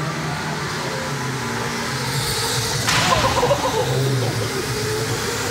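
Go-karts running around an indoor track, with a louder rush of noise about three seconds in as karts pass close by.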